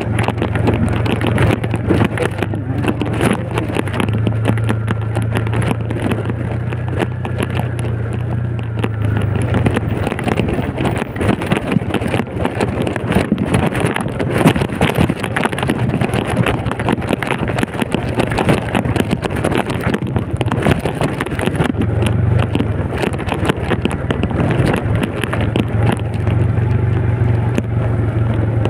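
Small motorcycle engine running steadily on a rough mountain road, its low hum easing off from about nine seconds in and coming back strongly a little after twenty seconds. Dense rattling and wind noise on the microphone run over it throughout.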